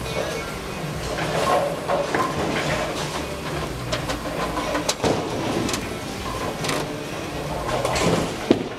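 Bowling alley din: bowling balls rumbling down the wooden lanes and pins clattering on neighbouring lanes, with scattered sharp knocks.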